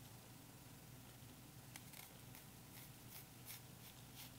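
Faint knife cuts: a santoku knife slicing through a red onion onto a cutting board, several soft strokes from about two seconds in.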